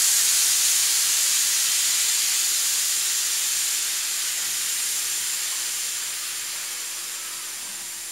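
Steam hissing from a stovetop pressure cooker's vent as its whistle weight is held up to let the pressure out by hand, so the cooked potatoes don't overcook. The hiss is loud and steady and slowly fades as the pressure drops.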